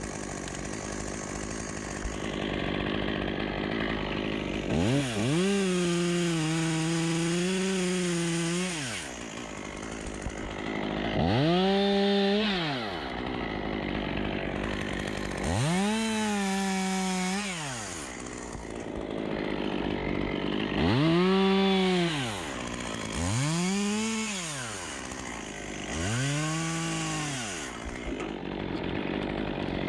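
Two-stroke chainsaw repeatedly revved up to full speed and let back down, about seven times, each rise lasting one to four seconds over a lower steady running sound, as it cuts black poplar branches.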